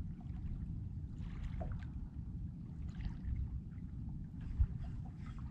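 Water lapping and sloshing against a small boat's hull over a low, uneven rumble, with one sharp knock about four and a half seconds in.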